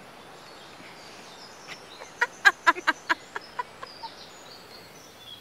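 A girl laughing: a short run of about seven quick 'ha' bursts starting about two seconds in, each fainter than the one before.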